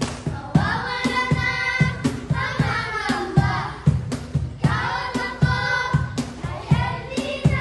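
Music with singing over a steady beat, about two beats a second.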